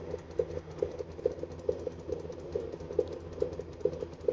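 Fetal heartbeat picked up by a handheld fetal Doppler at 22 weeks: a strong, fast, even pulse of about 140 beats a minute, over the device's steady hiss and hum.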